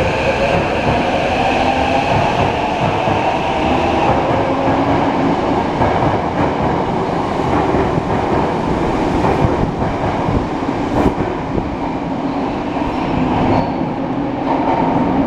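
Tokyo subway train pulling out of the station, its electric traction motors giving a rising whine as it accelerates over the steady rumble of wheels on rail.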